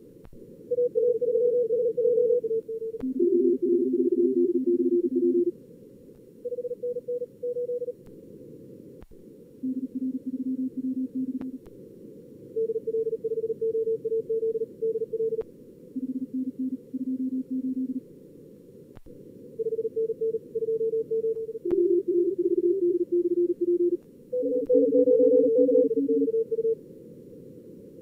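Simulated high-speed Morse code (CW), about 38 words per minute, from a contest logger's practice mode: keyed tones at several pitches, often two signals overlapping as two radios run at once, over a narrow band of receiver hiss. A few faint clicks sound now and then.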